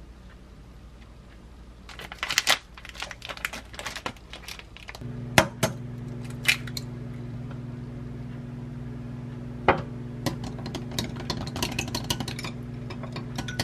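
Plastic vacuum pack of chicken breast crinkling as it is handled. An egg is then cracked with a couple of sharp knocks and beaten in a glass cup, making rapid clicking taps against the glass. A steady low hum starts about five seconds in.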